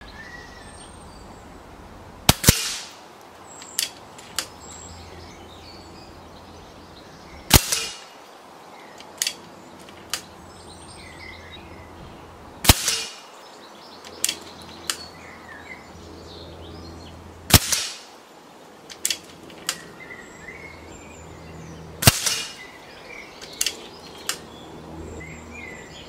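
Daystate Wolverine R pre-charged pneumatic air rifle firing five shots about five seconds apart, each a sharp crack followed a moment later by a second, quieter knock. Quieter metallic clicks come between the shots as the side lever is cycled to chamber the next pellet. Birds chirp faintly in the background.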